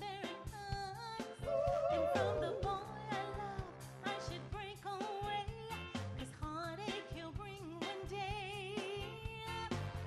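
Live soul-pop performance: women singing, with vibrato on held notes, over a band with drums, electric guitar and keyboards.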